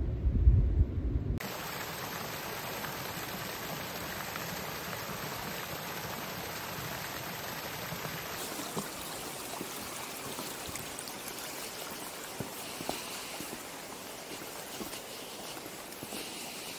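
Low wind rumble for about the first second and a half, then a sudden cut to a river running steadily, with a few faint taps near the end.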